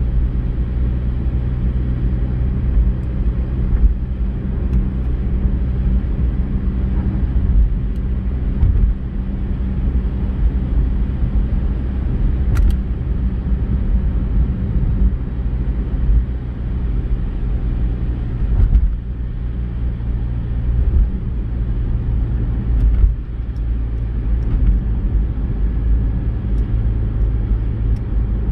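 A car driving on a wet road, heard from inside the cabin: steady engine and tyre noise, a low rumble with an engine hum that changes pitch about halfway through.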